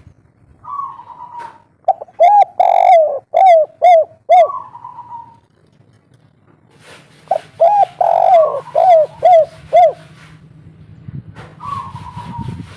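Spotted dove (tekukur) singing its cooing song of the 'kuk 3' type: two loud phrases of quick, repeated falling coo notes, the second starting about seven seconds in, with softer, higher drawn notes before and after them.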